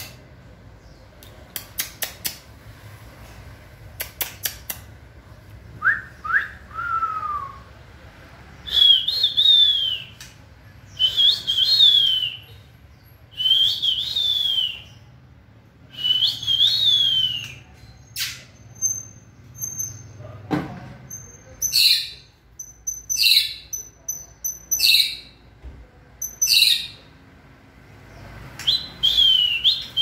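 White-rumped shama singing: a few sharp clicks, then a run of loud whistled phrases, each ending in a falling note, coming about every two seconds, the later ones sharper and thinner. A single sharp knock about two-thirds of the way through.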